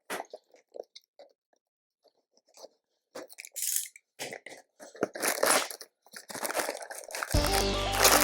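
LEGO set packaging being opened by hand: a run of short crackles, snaps and rustles of cardboard and plastic being torn and handled. Music starts near the end.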